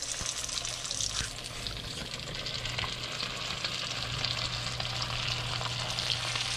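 Grouper roe frying in hot oil in a deep aluminium pan: a steady sizzle with dense crackling, over a low steady hum.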